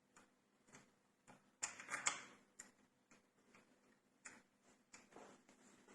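Faint, irregular clicks and light taps of small door-lock parts being handled, with a quick cluster of knocks about two seconds in.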